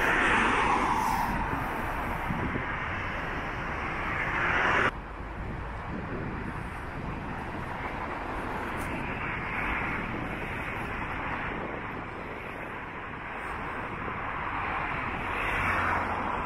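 Roadside traffic: passing vehicles whose tyre and engine noise swells and fades several times over a steady background hum. One pass cuts off suddenly about five seconds in.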